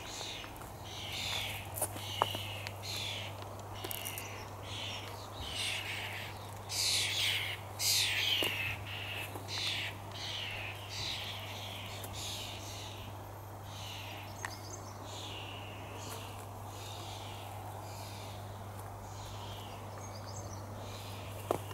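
Footsteps on grass: a soft swish with each step, about one every three-quarters of a second, louder in the first half. A steady low hum runs underneath.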